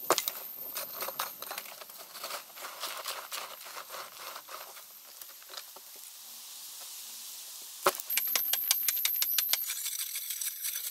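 Loose dirt clods and pebbles trickling and rattling down an earthen pit wall as someone scrambles up out of the pit. Just before eight seconds in, a sharp strike, then a quick run of clicks and scrapes as a machete blade hacks into hard-packed soil.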